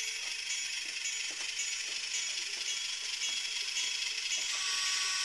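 HO-scale BLI Trackmobile model running on its DCC sound decoder: a small diesel engine sound from its tiny onboard speaker, with a beat about twice a second, over the whir of the model's motor and gears as it moves along the track.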